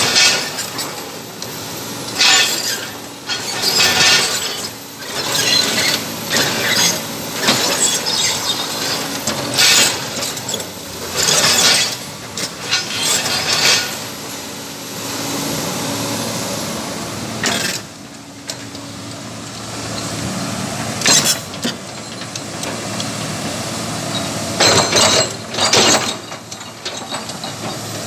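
Komatsu PC200 hydraulic excavator's diesel engine running as the machine tracks and swings its boom, with sharp metallic clanks every second or two.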